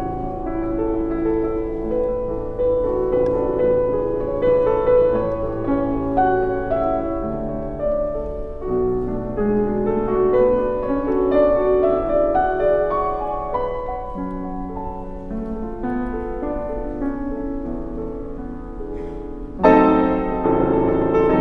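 Background solo piano music, a slow melody of held notes; a louder, fuller passage starts abruptly near the end.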